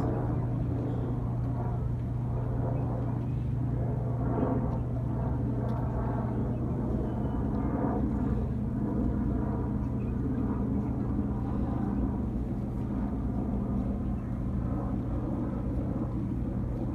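A steady low engine drone with a constant deep hum that holds unchanged throughout.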